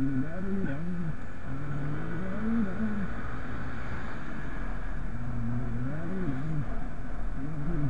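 Motorcycle engine accelerating on the road, its pitch climbing and falling back several times as the rider works the throttle and gears, over a steady low rumble of wind on the helmet-camera microphone.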